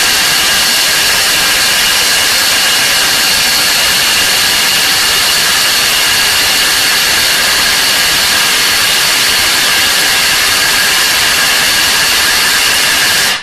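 Bosch GDX 18V-200 cordless impact wrench hammering steadily at full trigger on a large nut, cutting off suddenly near the end. The nut is torqued beyond what the wrench can break loose; it maxed out at opening 550 Nm.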